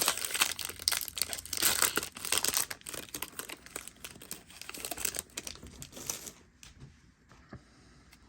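Foil trading-card booster pack wrapper being crinkled and torn open, a dense crackling that dies down about six and a half seconds in, leaving a few faint clicks.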